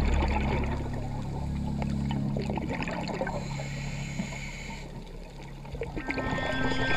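Ambient electronic background music with steady held drones and a crackling, watery texture.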